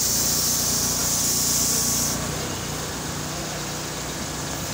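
Hose-fed sprayer nozzle hissing as it blasts a white mist, cutting off sharply about two seconds in, over a steady engine hum.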